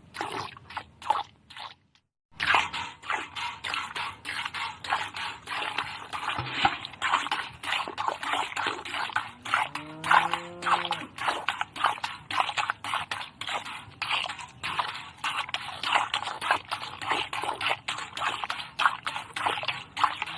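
A cow being milked by hand: quick, rhythmic squirts of milk, many a second, running almost without a break. The sound drops out briefly about two seconds in. A cow moos once, quietly, about halfway through.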